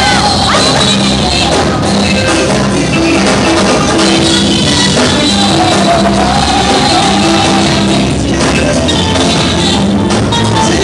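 Live gospel music played loud through PA speakers: a band with congas and electric guitar behind a woman singing lead into a microphone.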